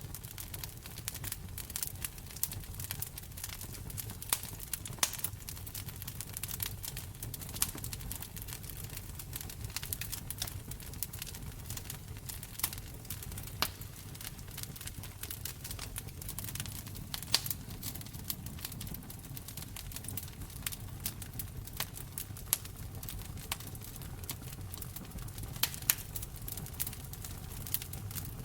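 Wood fire in a fireplace crackling, with frequent irregular sharp pops and snaps, a few louder than the rest, over a steady low rumble of the flames.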